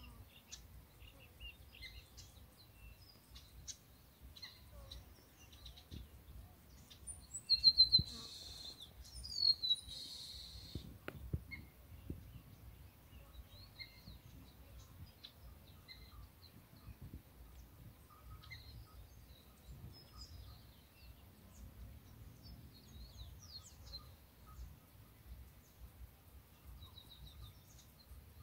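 Wild birds chirping and calling on and off, with one close, loud bird giving a quick run of repeated notes about eight seconds in, then a falling call a couple of seconds later. A low background rumble runs underneath.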